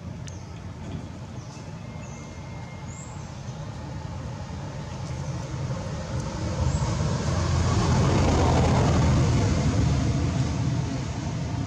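A motor vehicle going past, its low rumble swelling to a peak about eight seconds in and then easing off.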